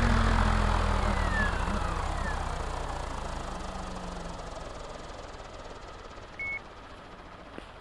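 Electric RC helicopter's brushless motor and rotor blades spooling down, the motor whine falling in pitch and the rotor whoosh steadily fading as the blades slow. A short high beep sounds near the end.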